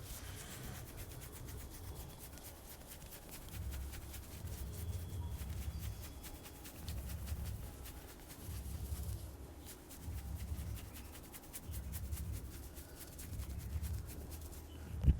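Hands rubbing during a head and neck massage: about six rubbing strokes, each around a second long, over a faint fine crackle. A sharp thump comes just at the end.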